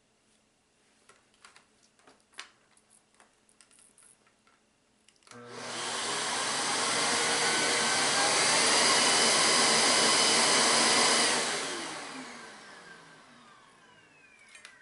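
A few small handling clicks, then about five seconds in a vacuum cleaner motor switches on with a rising whine and runs loudly. About eleven seconds in it is switched off and winds down, its whine falling away over the last few seconds.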